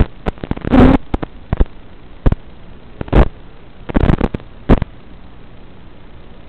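Static from an analog FPV video receiver's audio channel: a steady hiss broken by irregular, loud crackling pops through the first five seconds, then only the hiss.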